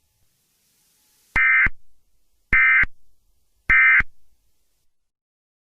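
Emergency Alert System end-of-message data tones: three identical short, shrill digital bursts about a second apart, the signal that marks the end of an alert broadcast.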